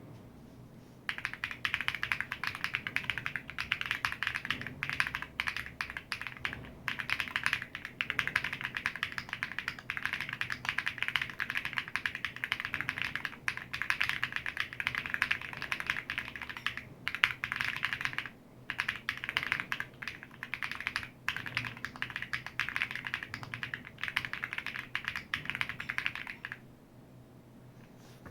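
Continuous fast typing on a Sugar65 mechanical keyboard with G-Square Beatrice switches on an FR4 plate, dampened with polyfill: a steady stream of key clacks with a clack on the bottom out and a subtle pop on the top out. It starts about a second in, pauses briefly a few times, and stops shortly before the end.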